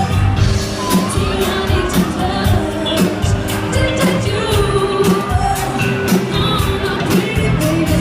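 Loud pop song with a singing voice over a steady drum beat.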